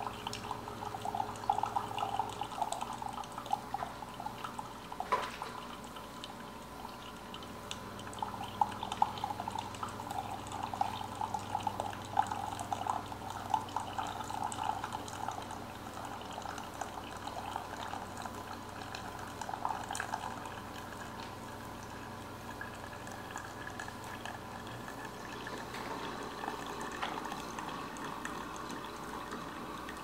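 Famiworths single-serve coffee maker brewing on its bold setting: hot water bubbling and coffee dripping slowly into the mug, an irregular crackle of drips that is busiest in the first half, over a low steady hum.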